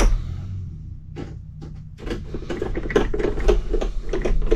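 Hands working on a plastic space heater's casing: a knock at the start, a couple of small clicks, then a busy run of clicks and rattles from about two seconds in.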